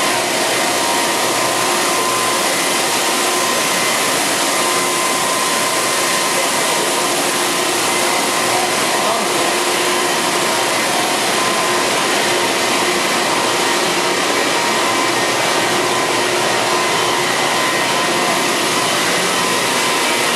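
Mazak Integrex 100-IISY CNC mill-turn lathe running in a machining cycle: a steady hiss with faint steady whine tones, with no knocks or breaks.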